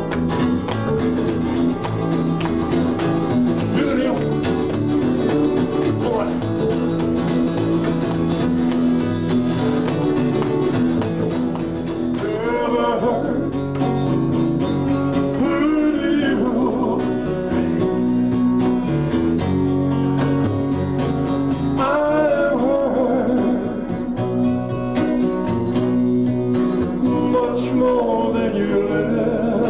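Live band music: an acoustic guitar strummed and an upright bass plucked, with a male voice singing in stretches.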